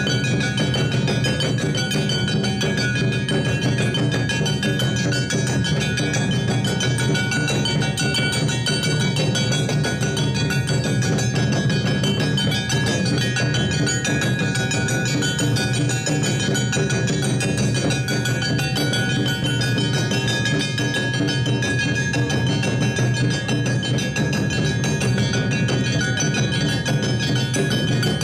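Awa odori festival band music: drums beating a steady rhythm under the ringing clang of a hand-held kane gong, playing without a break.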